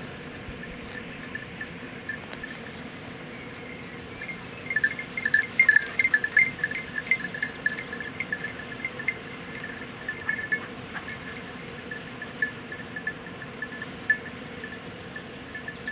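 Small bells on hunting dogs' collars ringing with each stride as the dogs move through scrub. The rings begin about five seconds in, come thick and loudest for a couple of seconds, then go on more sparsely.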